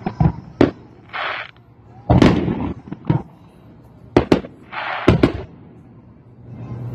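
Aerial fireworks shells bursting overhead: a series of sharp booms, the biggest about two seconds in, with two spells of crackling from the crackling stars, one about a second in and one near five seconds.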